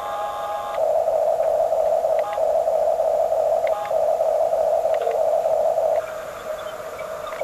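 Small electric motors of a radio-controlled construction model whining steadily. The pitch and level shift several times with short clicks as different functions are switched on and off, and the whine drops quieter for the last second or so.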